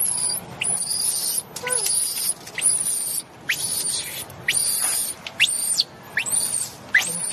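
Newborn macaque infant screaming in distress: a run of very high-pitched shrill squeals, about one a second, each ending in a falling glide.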